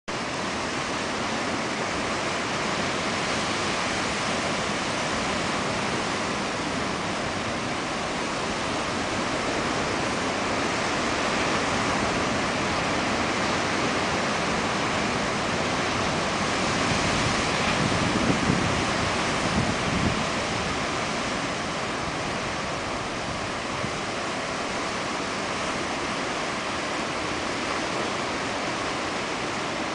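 Pacific surf breaking and washing around rocks in a cove: a steady rushing that swells louder, with a deeper rumble, for a few seconds about two-thirds of the way through.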